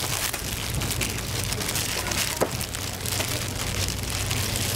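Hotteok frying in oil on a flat griddle: a steady sizzling hiss with fine crackles, and one sharper click about two and a half seconds in, over a steady low hum.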